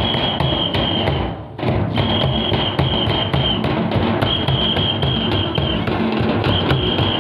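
Folk drum ensemble of large kettle drums (tamak') beaten with sticks and a hand-played barrel drum, keeping a fast, steady dance rhythm. A high held tone sounds over the drums in repeated phrases of about a second and a half each.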